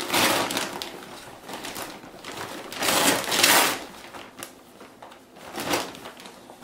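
Gift wrapping paper and tissue paper crinkling and rustling in uneven bursts as a toddler pulls it off a present, the loudest burst about three seconds in.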